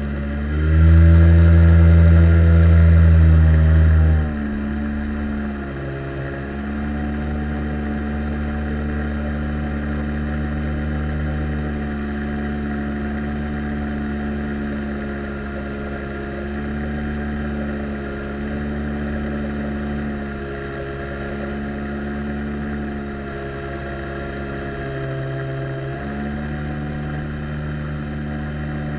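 Outboard jet motor on an inflatable boat running under way: the throttle comes up about a second in and eases back about four seconds in, then the motor holds a steady cruising speed with small rises and falls in pitch.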